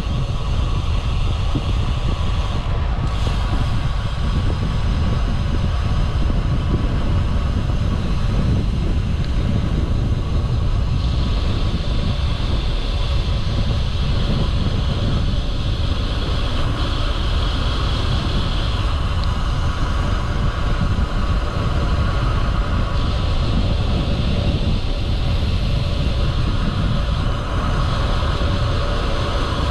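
Wind rushing over a bicycle-mounted camera's microphone while riding, a steady loud rumble. A higher hiss comes in about ten seconds in and drops out, then returns briefly later on.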